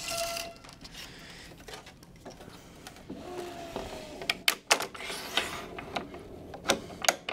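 Tennis string swishing as it is pulled through the racquet frame. A little after three seconds the stringing machine's tension head runs briefly with a short falling whine. Then come a series of sharp clicks from the string clamp and gripper being set and released.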